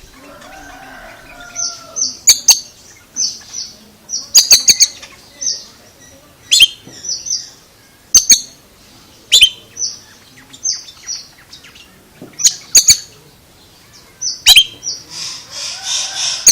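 Oriental magpie-robin singing: a run of short, high chirping notes broken by loud, sharp click-like notes every second or so.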